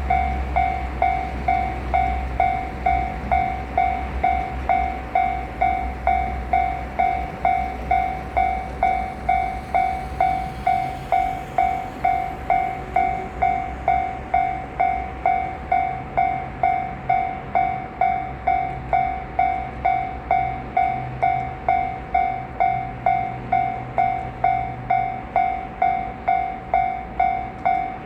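A Japanese level crossing's electronic warning bell ringing steadily, about two dings a second, each a clear tone that fades quickly: the crossing is closed for a train. Under it a freight train gives a low rumble, heaviest in the first ten seconds.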